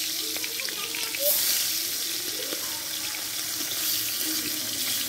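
Whole fish frying in hot oil in a wok: a steady sizzle, with a spatula moving through the pan near the end.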